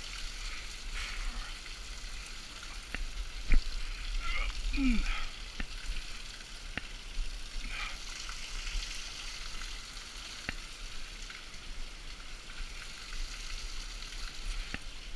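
Steady hiss of a running creek, with scattered clicks and knocks of footsteps and handholds on wet rock; the loudest knock comes about three and a half seconds in.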